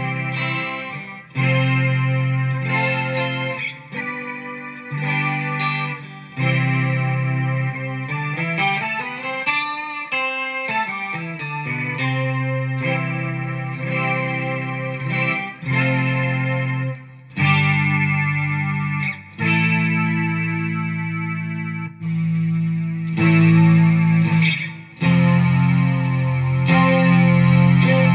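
Guitar played through a BOSS SY-200 synthesizer pedal: sustained polyphonic synth chords changing every second or two, with the pitch sliding down and back up near the middle.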